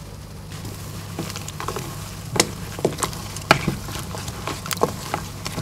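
A spoon stirring a mixture in a pan, with irregular light clicks and knocks against the pan, over a steady low hum.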